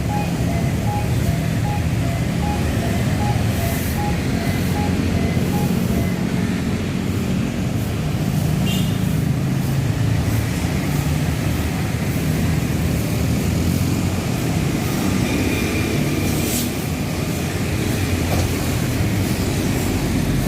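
A Transjakarta city bus running with a steady low rumble. A regular series of short electronic beeps sounds over it and stops about six seconds in.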